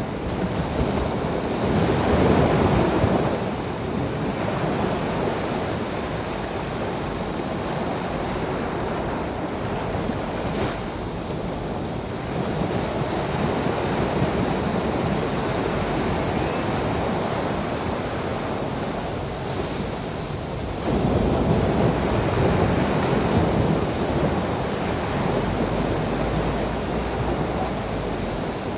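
Sea waves breaking and washing on a shore, a continuous surf with two louder breakers, about two seconds in and about a third of the way from the end, and some wind noise on the microphone.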